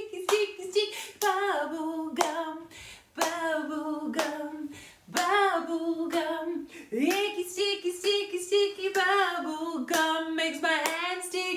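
A woman singing a children's song while clapping her hands to the beat, sharp claps about twice a second between her sung lines.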